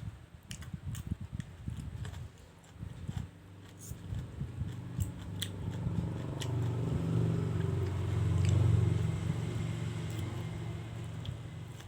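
Close-up eating sounds of fried noodles being bitten and chewed, with sharp wet clicks. Midway a low drone swells, peaks and fades under the chewing.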